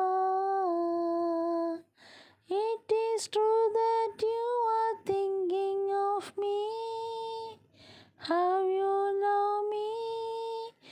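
A woman's high singing voice holding long, steady notes in short phrases with brief silent pauses between them, with no instruments heard.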